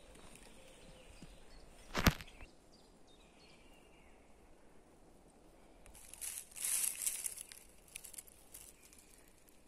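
Footsteps crunching and rustling through dry fallen leaves, mostly in a cluster about six to eight seconds in. A single sharp knock about two seconds in is the loudest sound.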